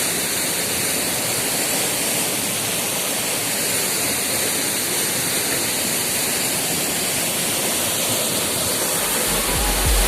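Waterfall rushing with a steady, dense roar of falling water. A deep bass comes in near the end.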